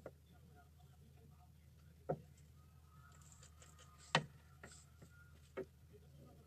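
Faint handling sounds of hot-glue crafting: three short sharp clicks or taps, about two, four and five and a half seconds in, the one near four seconds the loudest, over a low steady hum.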